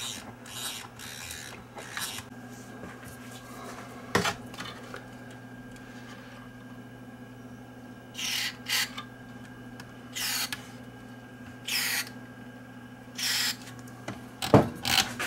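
Short hissing spurts of aerosol contact cleaner, about five, sprayed into the receiver's dirty volume and tone controls to clean them. A couple of sharp clicks and a louder knock near the end come in between, over a steady low hum.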